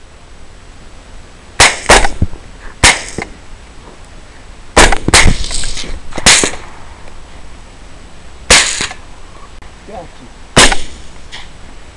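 Rifle shots, about eight in all, fired in quick irregular succession: a pair close together, then single shots or pairs every one to two seconds, the last near the end.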